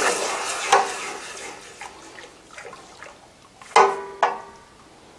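The hot end of a mild steel bar quenched in water: the hissing, bubbling sizzle dies away over the first second or two. Nearly four seconds in come two sharp, ringing metal clanks about half a second apart.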